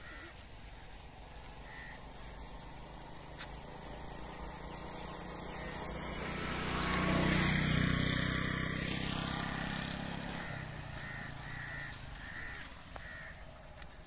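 A motor vehicle driving past, growing louder to a peak about halfway through and then fading away over several seconds. A bird gives a few short calls near the start and again near the end.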